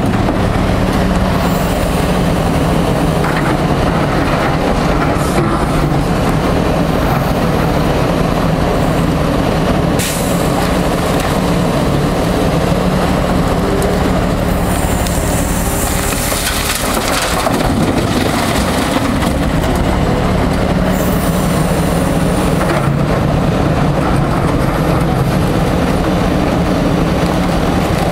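Liebherr R 944 C crawler excavator's diesel engine running steadily under load. About halfway through, a bucketful of broken rock clatters and pours into a steel dump-truck body, with smaller rock clatters before and after.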